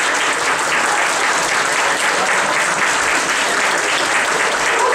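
Audience applauding: many hands clapping together in a dense, steady stream.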